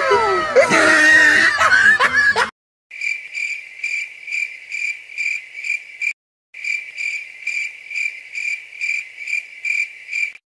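Cricket-chirping sound effect, the stock 'awkward silence' gag: a steady high chirp pulsing about two and a half times a second, starting after a hard cut to silence and broken once by a short gap midway. Before it, a voice with swooping pitch cuts off abruptly about two and a half seconds in.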